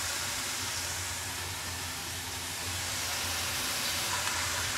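Oyster mushrooms and green chilies sizzling steadily in oil in a wok over a gas flame, with a low hum underneath.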